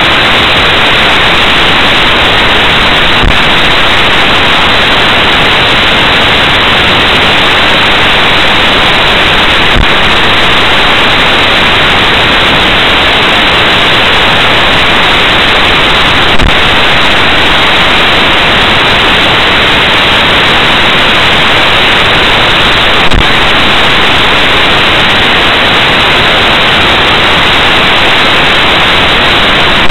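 Loud, steady static hiss from a dashcam's recording, with faint clicks about every six and a half seconds.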